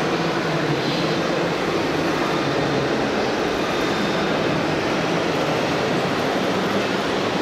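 Radio-controlled model trucks and construction machines running: a steady mechanical rumble with a faint hum, over the din of an exhibition hall.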